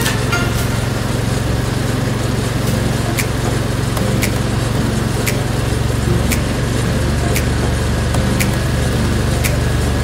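Argo amphibious ATV's engine running steadily, with a sharp tick about once a second.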